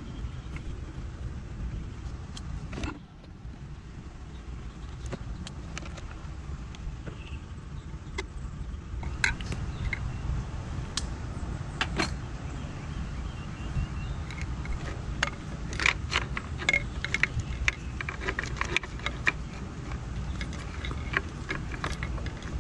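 Scattered small clicks and taps of a screwdriver and plastic parts as an e-bike's battery plate cover is unscrewed and pulled open and its wiring handled, growing busier from about nine seconds in. A steady low rumble runs underneath.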